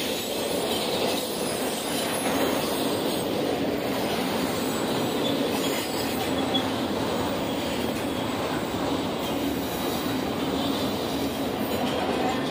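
CSX intermodal freight train, its trailers and stacked containers rolling past at speed. The wheels on the rails make a steady, unbroken rolling noise.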